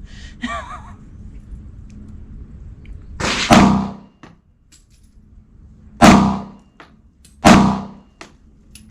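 Three gunshots at a shooting range, spaced a couple of seconds apart, the first about three and a half seconds in, each a sharp crack with a short ringing tail.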